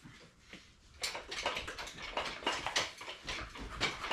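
Engine hoist being jacked up under the weight of a 7.3 diesel engine: quick, irregular creaking and clicking that starts about a second in and keeps on.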